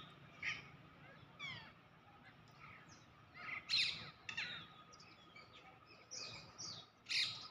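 A parrot calling in a run of short, sharp chirps, several sliding down in pitch, coming every half second or so, with the loudest calls a little past the middle and at the end.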